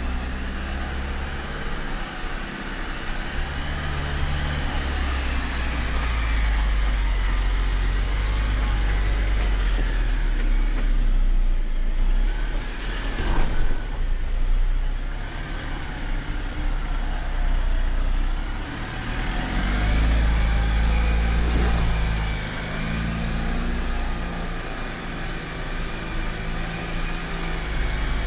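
Jeep Wrangler driving slowly over a rough off-road trail, its engine running at low revs with the pitch rising and falling under changing throttle over a heavy steady rumble. There is one sharp knock about halfway through.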